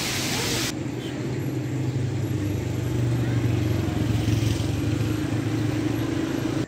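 Heavy rain hissing down on a street for a moment. Then a steady low engine hum that grows a little louder in the middle and cuts off suddenly at the end.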